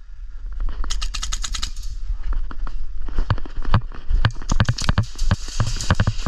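Airsoft guns firing: a rapid burst of sharp shots about a second in, then scattered single shots and low thuds.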